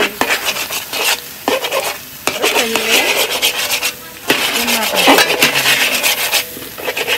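Two metal spatulas scraping and rasping against a steel wok in quick repeated strokes, stirring and chopping scrambled egg, with a few brief pauses.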